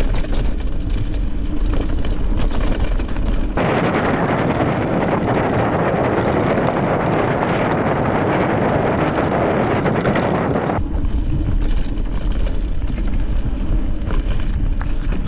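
Wind buffeting the microphone of a handlebar-mounted action camera while a mountain bike rides over rough trail, a steady loud rumble. About three and a half seconds in the noise abruptly turns thinner and hissier, and it changes back about seven seconds later.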